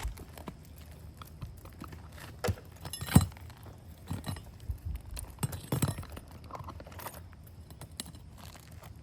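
Irregular clinks, scrapes and knocks of roofing work on asphalt shingles during a shingle replacement, with the loudest knock about three seconds in.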